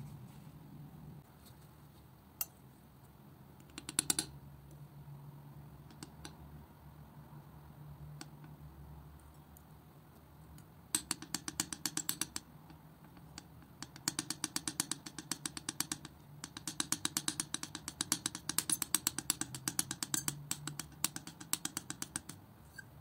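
Metal palette knife mixing thick acrylic paint on a smooth surface: a few isolated clicks, then from about halfway through rapid runs of sticky clicking and tapping strokes, several a second, with short pauses.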